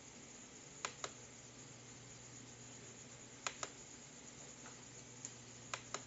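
A few separate keystrokes on an AULA F2088 mechanical gaming keyboard, most heard as a quick pair of sharp clicks, spaced a couple of seconds apart over a faint steady hiss.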